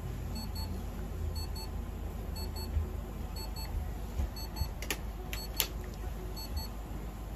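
An electronic device beeping in short high-pitched pairs, about once a second, over a low steady hum. Two sharp clicks come about five seconds in, half a second apart.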